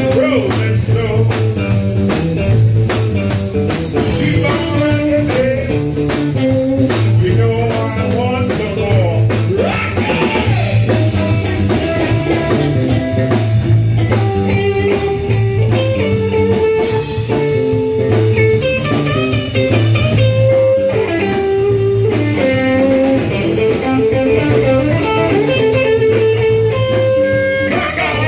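Live blues band playing: electric guitar to the fore over electric bass and drum kit.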